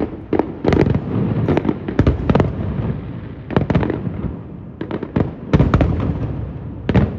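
Fireworks show: a rapid, irregular string of loud shell bursts and bangs with rumbling echoes and crackle between them.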